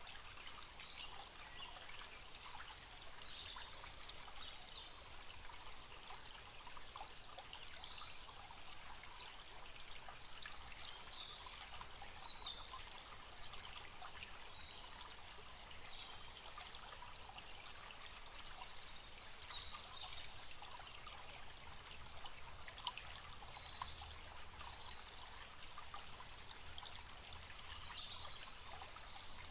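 Forest stream flowing in a steady gentle wash of water, with birds chirping over it in many short, high calls.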